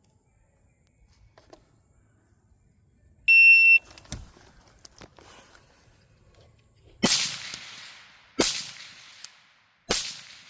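Electronic shot-timer start beep, one steady high tone about half a second long, then about three seconds later three carbine shots roughly a second and a half apart, each with a trailing echo.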